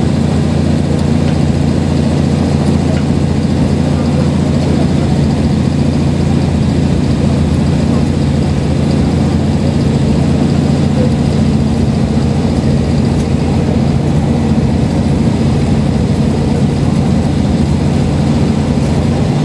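Inside a diesel railcar running at steady speed: a constant low engine drone mixed with the rumble of the running gear on the track.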